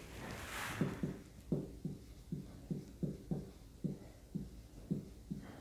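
Marker pen on a whiteboard writing out a word: a faint series of short squeaky strokes, about two to three a second.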